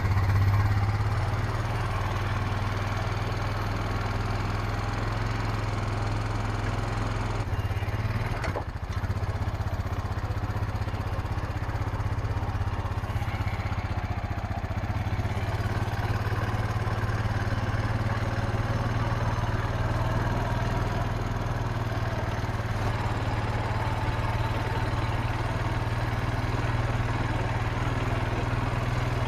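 Tractor engine running steadily at a constant speed, with a brief break about eight seconds in.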